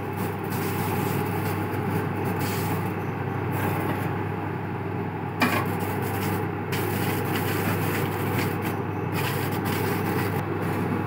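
Aluminium foil crinkling and a flat aluminium lid being handled as a biryani pot is sealed for dum, over a steady humming rush of kitchen background noise. A sharp knock comes about five seconds in.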